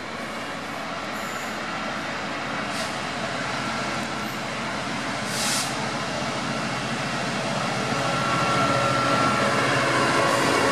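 Class 66 diesel locomotive, with its two-stroke V12 engine, approaching and running past at speed with a train of open freight wagons. The engine drone and wheel-on-rail rumble grow steadily louder as it nears, with a short hiss about halfway.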